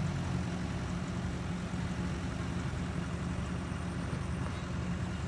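Heavy vehicle engine running steadily with a low hum, without revving.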